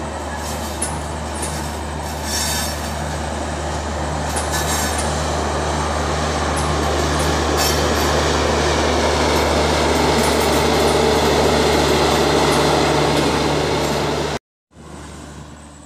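Passenger train of LHB coaches rolling slowly past, with scattered wheel clicks and squeals over a steady low drone, growing louder as the rear of the rake comes by. The sound cuts out suddenly near the end, then returns briefly and fades.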